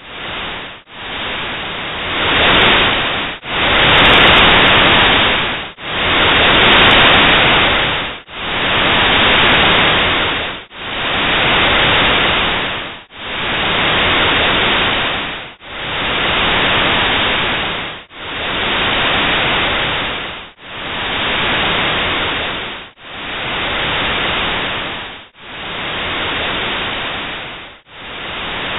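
Cotopaxi volcano's infrasound made audible as modulated white noise: a hiss that swells and dips in even pulses about every two and a half seconds, strongest a few seconds in and then slowly weakening. The pulsing traces air resonating in the volcano's deep, narrow crater like a pipe organ, the sounds called 'tornillos'.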